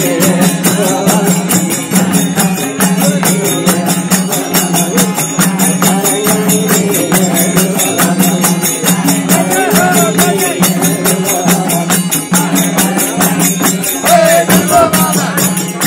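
Nepali devotional bhajan music: voices singing over fast metallic jingling percussion and a steady low beat about twice a second.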